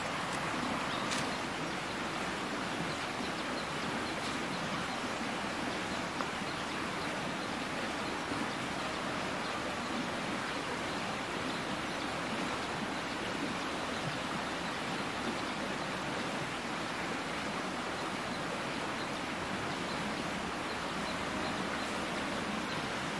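Steady rushing outdoor background noise, even throughout, with a faint click about a second in.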